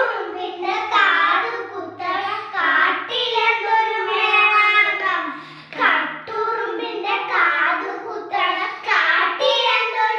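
Young children singing an action song together, unaccompanied.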